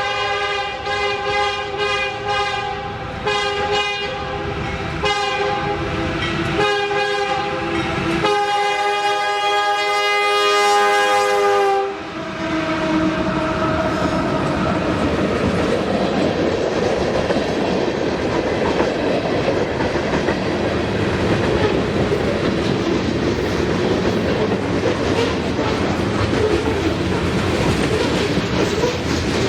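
Norfolk Southern locomotive horn blowing an awful-sounding set of blasts, choppy and stuttering for the first several seconds, then one steady long blast that stops about twelve seconds in. After the horn, the train's cars rumble and clack steadily past on the rails.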